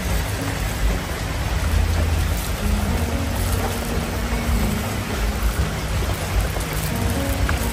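Steady rain, a dense even hiss with a low rumble underneath.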